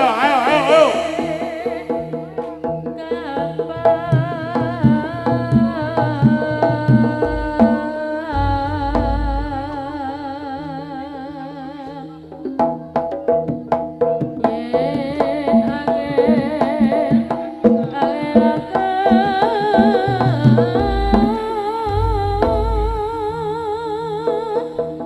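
Live jaranan gamelan music: hand drums play busy rhythms under a wavering melody with strong vibrato, and a deep gong booms twice, about eight seconds in and again near the end.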